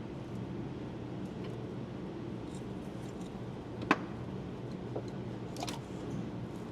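Hand tools working on an engine's top end: one sharp metal click about four seconds in and a couple of fainter ticks after it, over a steady low hum.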